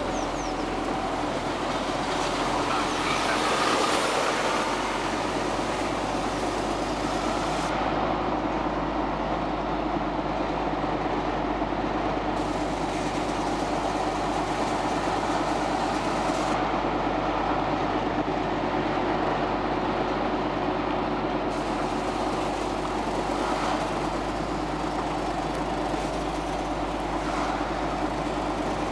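Tractor's diesel engine running steadily at road speed, heard from inside the cab as a continuous drone with a low hum.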